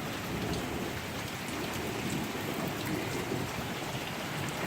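Heavy rain pouring down steadily in a thunderstorm downpour, an even rushing hiss of drops hitting surfaces.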